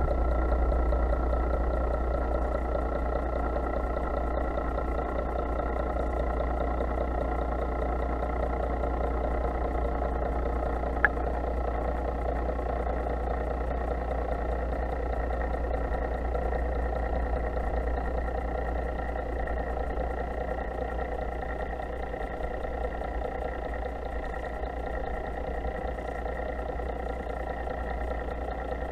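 Steady low hum of a boat's engine heard through an underwater camera, with a faint steady whine over it. A single sharp click about eleven seconds in.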